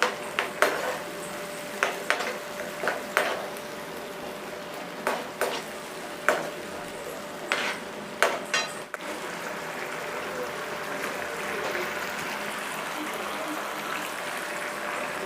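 A spoon stirring in a frying pan, knocking and scraping against it several times over the first nine seconds, with the onion, chilli and soy sauce mixture sizzling; after that only the steady sizzle of the frying goes on.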